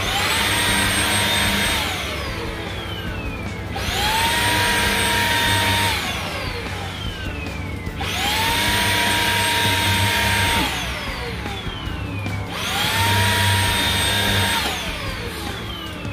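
Xiaomi Dreame XR cordless stick vacuum switched on and off four times. Each time the motor spins up to a steady high whine with suction noise, runs about two seconds, then winds down with falling pitch before starting again.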